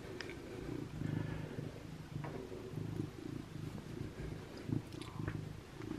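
A domestic cat purring steadily, with a few faint clicks.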